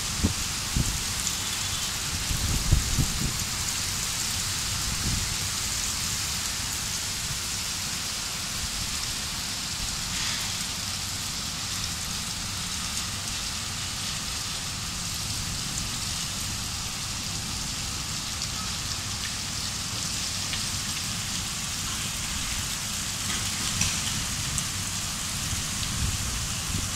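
Heavy rain falling steadily, an even dense hiss, with a low rumble beneath it and a few low bumps in the first few seconds.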